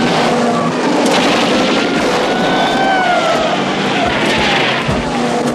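Film sound of 1930s cars racing and skidding on a dirt road: engines running hard under a dense wash of tyre and gravel noise, with whines that rise and fall in pitch.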